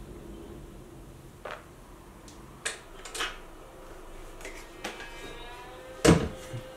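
A handful of clicks and knocks from office chair parts being handled during assembly, the seat mechanism knocking against the plastic seat base, with the loudest knock about six seconds in.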